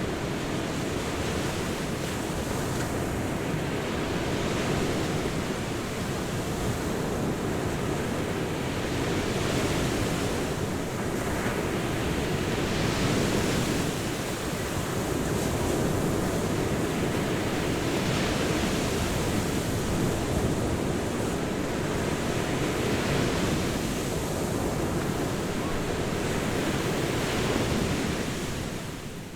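Ocean surf breaking on a beach: a continuous wash of waves that swells and eases every few seconds.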